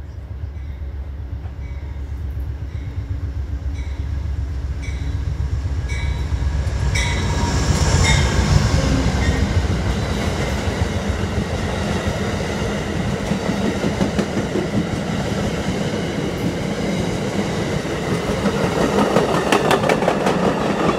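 Amtrak passenger train approaching and passing close by: a diesel locomotive's low rumble builds to its loudest as the engine goes past about eight seconds in, then the passenger cars' wheels clatter steadily over the rail joints. During the approach a bell rings at a steady beat, a little under once a second.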